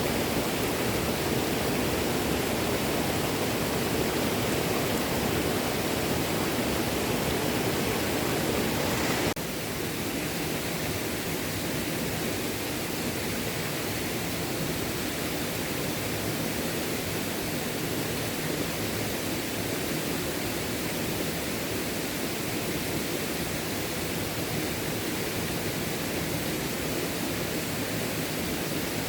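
Small stream flowing, a steady rush of running water. About nine seconds in it drops suddenly to a softer, thinner rush and carries on steadily.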